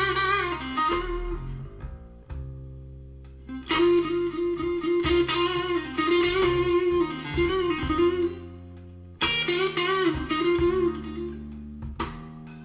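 Blues song in an instrumental stretch: an electric guitar plays a solo of held, wavering notes in phrases, over bass and drums, played back through 10ГДШ loudspeakers.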